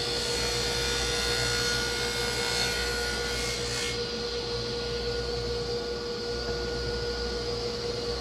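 Table saw running with a steady hum, its tilted blade cutting the corners off a wooden cajón's faceplates, with a harsher cutting hiss for the first four seconds or so that then drops back to the blade spinning free.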